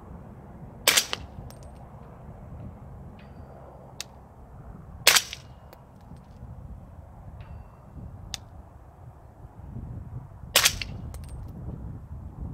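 Three suppressed rifle shots, about five seconds apart, from a 16-inch AAC .300 Blackout AR-15 firing subsonic 220-grain ammunition through an AAC Titan Ti suppressor. Wind rumbles on the microphone between shots.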